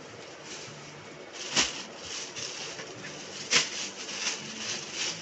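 Plastic packaging crinkling and rustling as jeans are unwrapped and handled on a counter, with two sharp slaps about two seconds apart.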